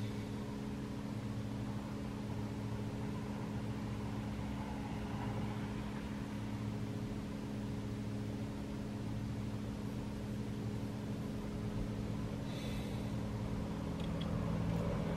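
Idling vehicle engine giving a steady low hum that does not change.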